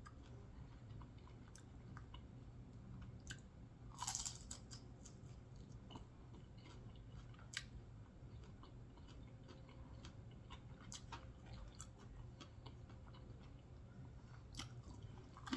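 Faint close-up chewing of food, with scattered small crunches and mouth clicks and one louder crunch about four seconds in.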